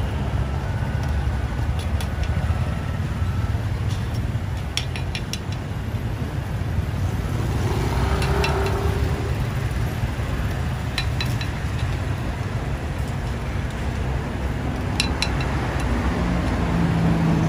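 A metal spoon clinking against a cast-iron khanom krok pan as pancakes are scooped out: short clusters of light clinks every few seconds, over a steady low street rumble.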